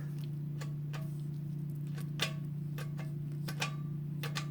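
Steady low electrical hum with faint, irregular clicks, about two or three a second, from a water distiller that has been switched on but does not start: its fan motor stays silent.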